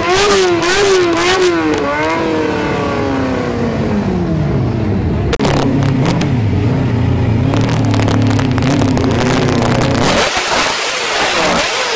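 Motorcycle engines being revved through loud exhausts: quick, rhythmic throttle blips that then die away to a falling pitch, followed by a deeper-toned engine revved up and down in short rises.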